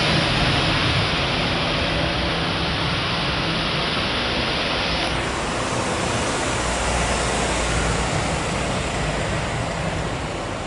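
Boeing 737-900ER's CFM56 jet engines running as the airliner rolls along the runway: a steady rushing roar.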